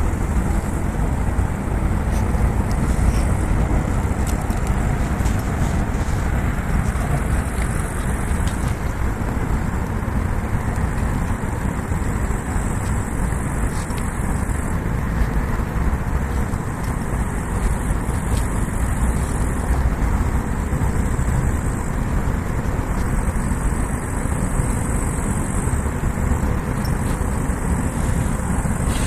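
Grasshoppers stridulating, a high thin buzz that comes in repeated bouts of a few seconds each, over a steady low rumble.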